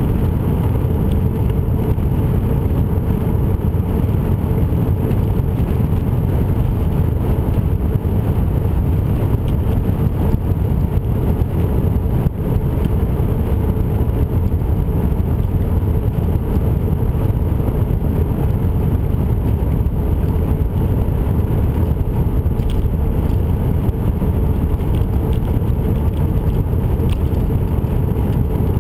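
Steady rumble of wind and rolling noise on a camera travelling along a paved trail, with a faint steady hum underneath.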